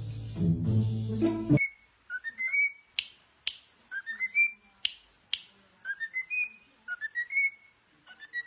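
Music stops about one and a half seconds in. Then a short rising whistle repeats about once a second, each one sliding up to a held high note, with a few sharp clicks between.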